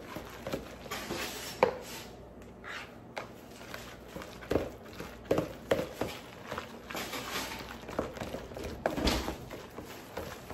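Kitchen handling noises: irregular light knocks, taps and clatter, with a few sharper clicks, over a faint steady low hum.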